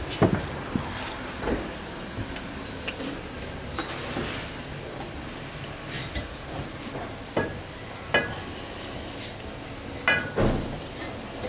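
Irregular knocks and light metallic clinks, about a dozen scattered unevenly, over a steady background noise.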